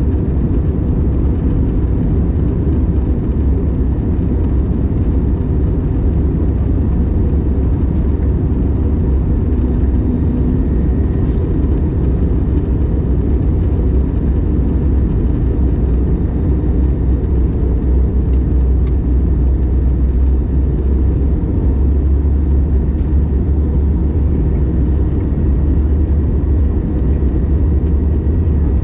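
Steady low rumble of cabin noise inside an Airbus A321neo airliner in flight: airflow and engine noise, with a faint steady hum above it.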